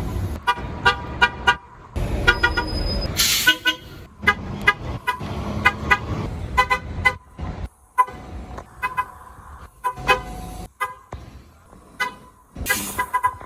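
City transit bus horns honking in many short, quick toots, some in rapid runs, over a low bus engine rumble. There are two brief hisses of air, about three seconds in and near the end.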